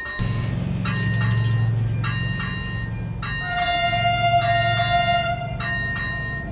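Electronic warning bell (ZV-01) of a Czech AŽD 71 level-crossing signal ringing in repeated paired strikes, about one pair a second, meaning the crossing is active and a train is due. Beneath it runs a steady low hum, and a long steady tone sounds for a couple of seconds around the middle.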